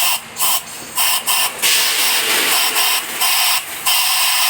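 Compressed-air blow gun hissing in repeated blasts, several short ones and then longer ones of a second or more, as air is blown through the small passages and jets of a Tecumseh lawn-mower carburetor to clear whichever hole is clogged.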